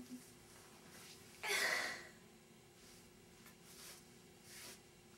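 A woman crying: a sharp gasping sob about a second and a half in, then a few softer shaky breaths.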